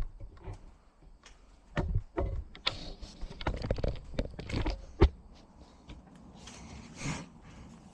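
Irregular clicks and knocks of a chainsaw chain and a bench chain sharpener being handled, with the sharpest knock about five seconds in. No grinding wheel is running.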